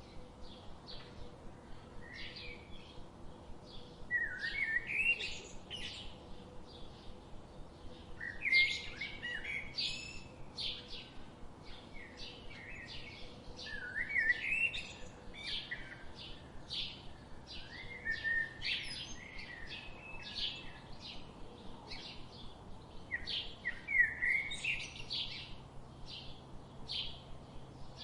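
Several songbirds chirping and singing, with many short repeated chirps and rising trills overlapping, over a soft steady background hiss.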